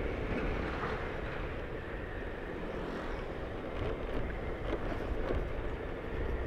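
Steady running noise of a moving vehicle on a rough road, with wind buffeting the microphone and a few faint rattles near the middle.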